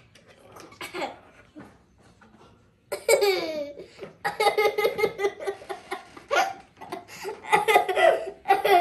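Young girls laughing: a short laugh about a second in, then long bursts of giggling laughter from about three seconds in.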